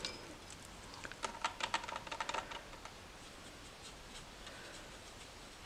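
Watercolour brush dabbing and stirring paint in the mixing well of a plastic palette: a quick run of faint, light ticks about a second in, lasting just over a second.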